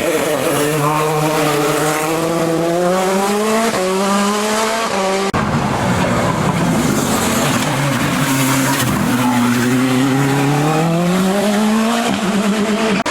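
Hill-climb race car engine at high revs, the pitch sliding down and climbing again as the car brakes, changes gear and accelerates through the bends. There is an abrupt break about five seconds in, then the revs fall once more and rise steadily before dropping again near the end.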